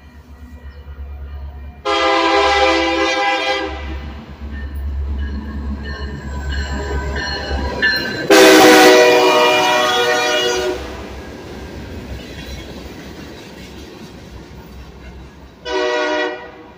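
BNSF diesel freight locomotives approaching and passing, their multi-chime air horn sounding two long blasts and then a short one over the low rumble of the engines. This is the opening of the long-long-short-long grade-crossing signal. The freight cars' wheels rumble on the rails between and after the blasts.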